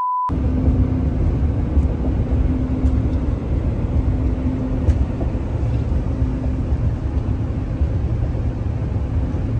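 A test-tone beep cuts off a moment in, then comes the steady road and engine rumble of a vehicle driving on a highway, heard inside its cab.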